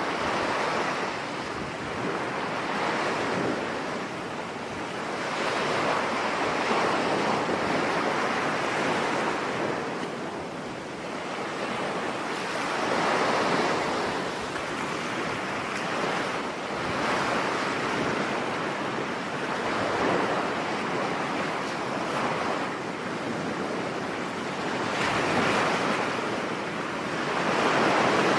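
Ocean surf, waves washing onto a shore in a continuous rush that rises and falls every few seconds.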